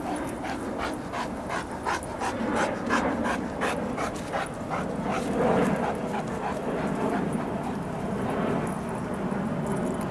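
A large dog panting in quick, even breaths, strongest in the first few seconds and fading out about halfway through.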